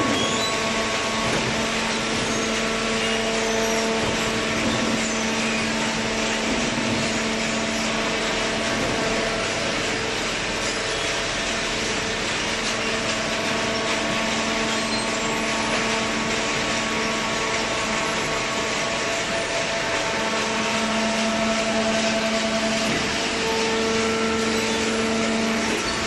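Industrial machinery running steadily in a baling workshop: a constant mechanical noise with a steady hum of several tones that swells and fades a little at times.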